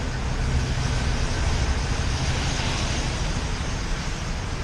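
Steady hiss of rainy, wet-street traffic heard from a moving bicycle, with a low rumble underneath.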